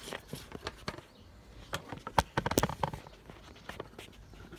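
Handling noise: scattered clicks and light knocks, thickest about two seconds in, as the recording phone is moved and propped in place.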